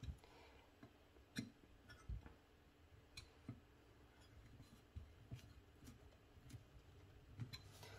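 Near silence with a scattering of faint, sharp clicks: a screwdriver working screws and small parts in a Rochester 4GC four-barrel carburetor body.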